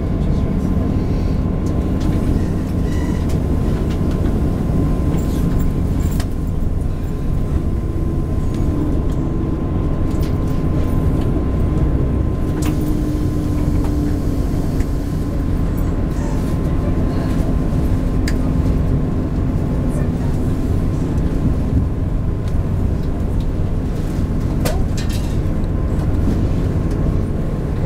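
Steady rumble of a moving passenger train heard from inside the carriage: wheels running on rail, with a faint steady high tone and an occasional sharp click.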